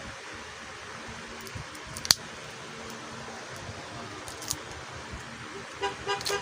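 Plastic speedcube being handled, giving scattered small clicks over a steady background hiss. There is one sharp click about two seconds in and a quick run of clicks near the end.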